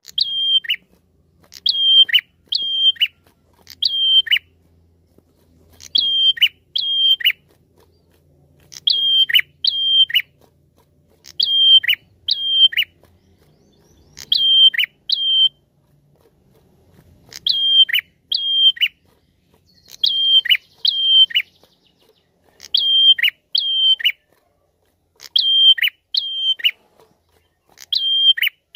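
A caged prenjak (ashy tailorbird) calling loudly and repeatedly, mostly in quick pairs of notes, a pair about every one to two seconds. Each note is held high, then drops sharply. This is the kind of call keepers use as a lure call (pikat), put about as a female calling a male.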